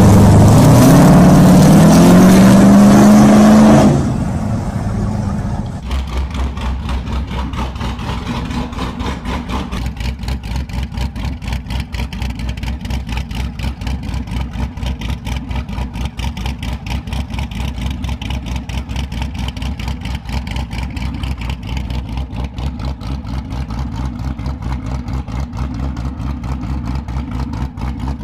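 Boss Hoss V8 motorcycle pulling away, its engine note rising steadily for about four seconds. After a cut, a Boss Hoss Super Sport's V8 idles with a steady, even pulse.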